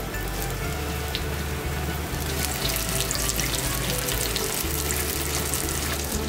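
Flour-coated chicken pieces shallow-frying in hot oil in a frying pan, a dense sizzling and crackling that grows busier a couple of seconds in.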